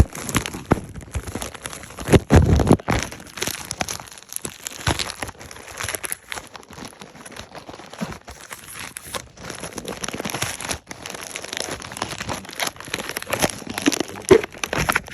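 Packaging crinkling and tearing as it is handled and opened, an irregular crackle with heavier rustles about two seconds in and again near the end.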